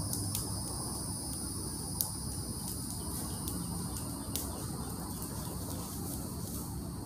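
Insects singing in the woods: a steady, even high-pitched chorus. It is broken by a few sharp snaps, the loudest about two seconds in and another past four seconds.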